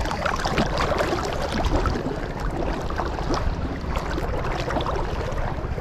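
Small motorized fishing boat under way: its engine runs steadily beneath a constant wash of water noise with frequent small splashes.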